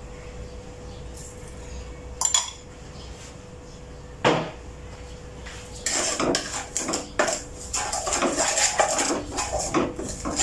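Spatula scraping and knocking against a nonstick frying pan as sauce is stirred: two single knocks, then a busy run of scraping and clatter from about six seconds in.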